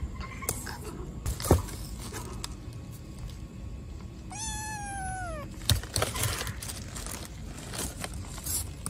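A baby black kitten meows once, a single call of about a second that sinks slightly in pitch as it goes. Around it come a few sharp knocks and some rustling, the loudest knock about a second and a half in.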